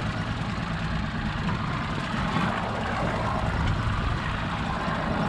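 Twin Mercury 200 outboard motors idling, a steady low rumble with an even hiss over it.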